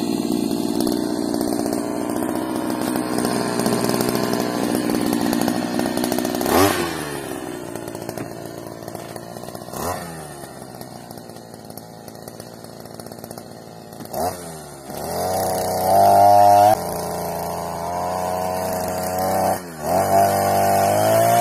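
Petrol brush cutter cutting weeds. Its small engine runs steadily at high speed, then falls back toward idle with a falling pitch several times. It revs up high and loud again in the last few seconds.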